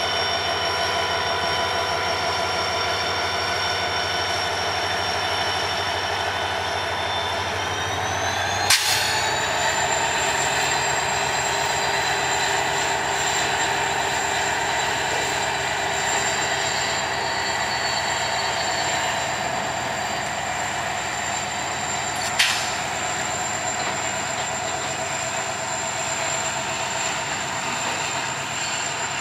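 EMD WDG4 diesel locomotive's two-stroke turbocharged engine running under load as it pulls away with a freight train, its high whine rising in pitch about eight seconds in and then holding steady. Two sharp clicks, one near the rise and one about two-thirds of the way through.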